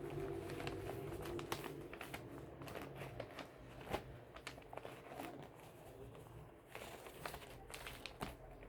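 Paper being crumpled and handled: irregular crinkling crackles, with a sharper crackle about four seconds in.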